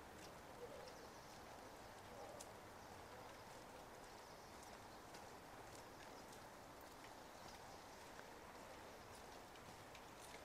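Faint steady hiss of light rain on a wet street, with scattered small ticks of drops.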